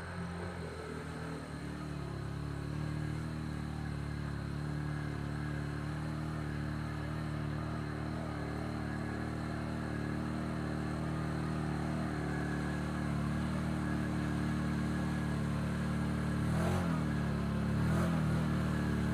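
Can-Am Outlander ATV engine running steadily under load as the quad pushes through deep water, slowly getting louder as it comes closer. Near the end the revs dip and rise a couple of times.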